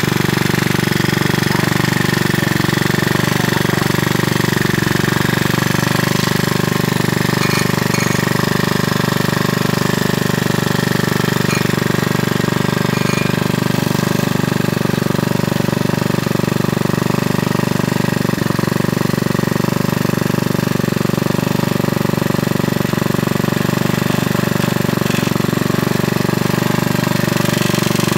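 Generator engine running steadily at a constant speed, with an even, rapid low beat.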